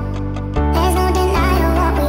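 Background music with sustained bass notes and a melody line; the fuller arrangement comes back in about half a second in after a brief thinner passage.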